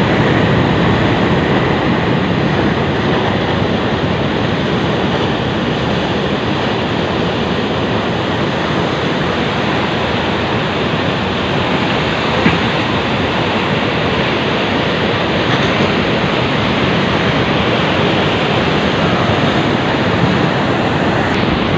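Steady rush of sea surf washing against a breakwater, mixed with wind.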